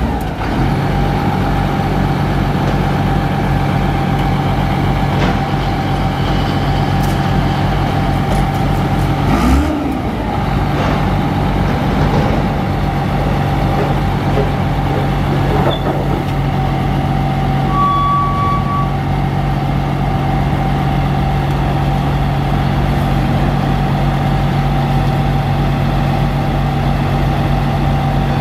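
A crane truck's Caterpillar 3126B diesel engine running steadily with a steady thin whine, while the hydraulic outriggers are being swung out. The engine note dips and glides briefly about ten seconds in, then steadies. A short high tone sounds about eighteen seconds in.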